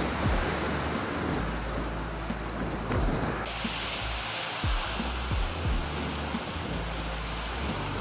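Wind buffeting the microphone in low, uneven rumbles over a steady rush of river water, with a few short low knocks.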